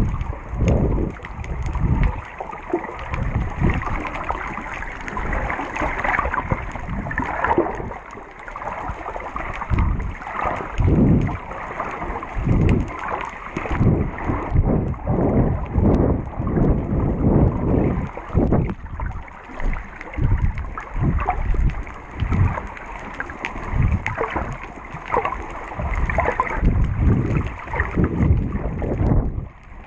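Muffled underwater water noise picked up through a GoPro's waterproof housing, swelling and falling in uneven surges about one to two times a second as the camera is swum through the water.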